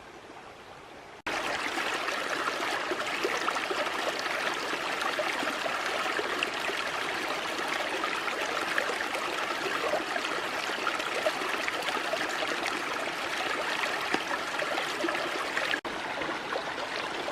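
Creek water running over rocks in a steady rushing splash, as at a small cascade. It starts suddenly about a second in, after a quieter stretch.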